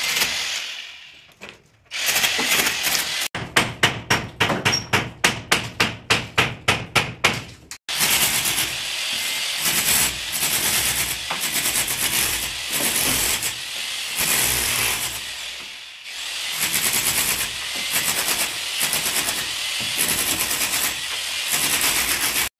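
Corded electric hammer chiselling out a concrete door lintel to raise the opening. Steady hammering, with a brief lull near the start and a stretch of separate blows a few times a second in the first third.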